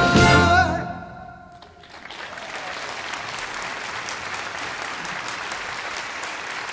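A symphony orchestra's final chord, which cuts off about a second in and dies away. Then an audience applauding steadily.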